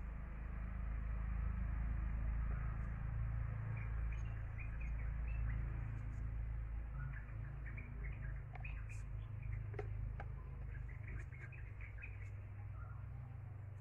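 Small birds chirping in short calls, thicker in the second half, over a steady low rumble, with a few sharp clicks a little past the middle.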